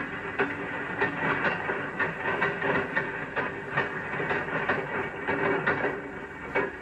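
Railroad gondola car rolling down a hump-yard track, its steel wheels clicking and clattering over rail joints and switches above a steady hiss, on an old film soundtrack.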